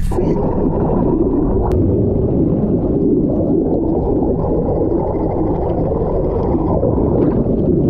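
Steady, muffled underwater rush and gurgle of moving water, with the high end cut off.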